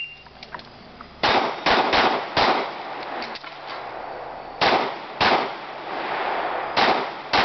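A pistol fired in quick strings during a practical shooting stage: four fast shots about a second in, two more past the middle and two near the end. A few faint ticks fall between the first and second strings.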